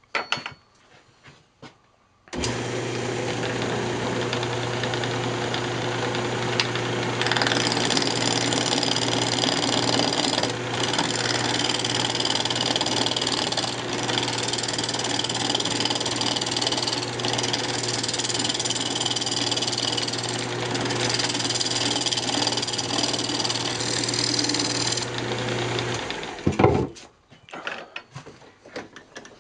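Delta wood lathe switched on about two seconds in and running steadily with a low motor hum. For most of the run a gouge cuts across the spinning maple blank to true it up, adding a high hissing scrape. The lathe is switched off near the end and the sound cuts off.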